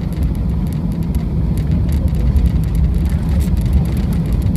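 Airbus A320-family airliner touching down and rolling out on the runway, heard from inside the cabin: a loud, steady low rumble of engines and wheels that swells a little after the first second as the ground spoilers rise, with light rattling ticks over it.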